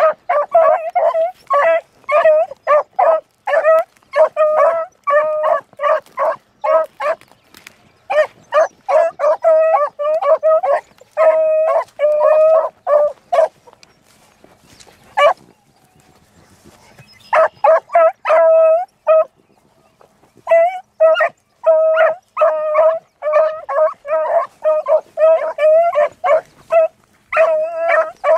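Beagles baying in quick runs of short bays, some drawn out longer, with a break of a few seconds about halfway through. This is hounds giving voice as they work a rabbit's scent line.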